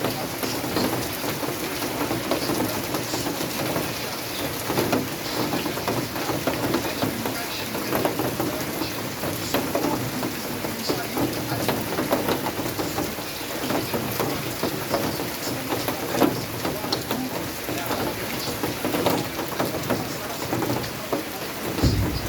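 Steady rain falling, many drops pattering on a surface. A low sound comes in right at the end.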